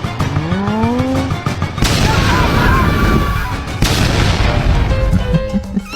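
Soundtrack music with sound effects: a rising tone in the first second, then two loud blasts about two seconds apart.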